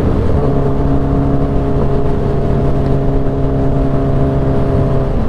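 Kawasaki Ninja H2's supercharged inline-four running at a steady cruise, holding one even note from about half a second in, over a haze of wind and road noise.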